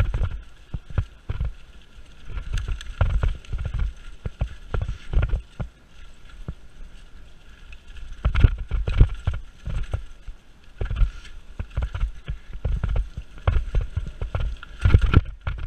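Mountain bike ridden fast over a leaf-covered dirt trail: tyres rolling over dry leaves and dirt, with irregular knocks and rattles as the bike jolts over bumps and roots, heaviest about halfway through and again near the end.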